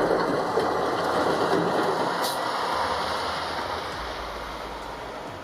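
Bulldozer running as it pushes snow, a dense, steady machine noise that fades out gradually toward the end.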